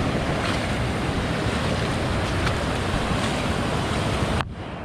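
Steady rush of flowing water. About four seconds in, the hiss suddenly loses its high end and turns duller and quieter.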